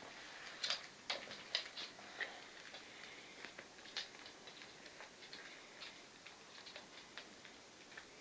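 Faint, irregular little clicks and smacks from three-week-old Lhasa Apso puppies licking at a food mix and pattering about on the rug and newspaper, busiest in the first couple of seconds.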